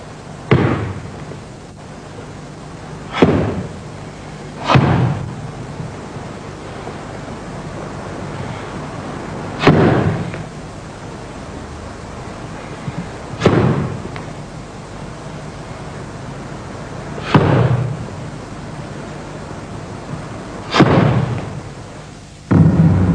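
Bajiquan stamping steps: seven heavy foot stomps on a wooden floor, a few seconds apart, each with a short echo in the hall. Near the end the sound cuts off abruptly to a steady hum.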